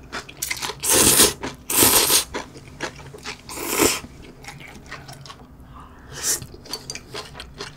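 Close-up eating sounds of instant ramen noodles: three loud slurps about a second in, two seconds in and near four seconds in, a smaller slurp after six seconds, and wet chewing clicks between them.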